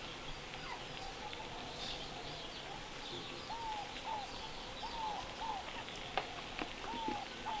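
Birds calling outdoors: a short arched call repeated every half second to second from about halfway through, often twice in quick succession, over faint high chirping, with a few soft clicks.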